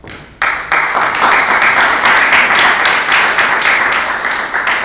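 Audience applause. It breaks out suddenly about half a second in, holds steady as a dense patter of many hands, and thins out near the end.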